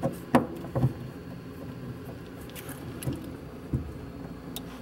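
Bolts and washers clicking and tapping against a metal mounting bracket as they are pushed by hand through its holes. There are a few separate sharp clicks, the loudest two within the first second.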